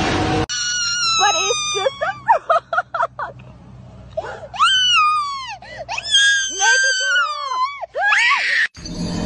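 A young child screaming and wailing in very high-pitched cries: short choppy shrieks about a second in, then long drawn-out screams that fall in pitch. The screaming cuts off suddenly near the end.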